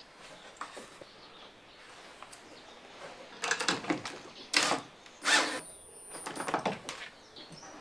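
A cordless drill driving screws through a steel gas-strut mounting bracket into wood, in several short bursts starting about three seconds in.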